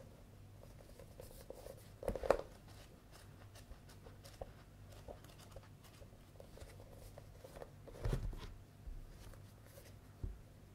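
Paperback manga volume being handled and its pages flipped, with light page rustles throughout and a louder rustle about two seconds in. A soft low thump comes about eight seconds in and a light knock near the end as the books are moved.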